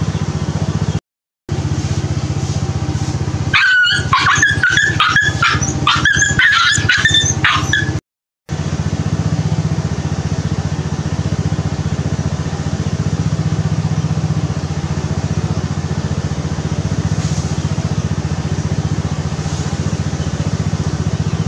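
A run of short, high-pitched animal calls lasting about four seconds, over a steady low hum. The sound drops out to silence briefly twice.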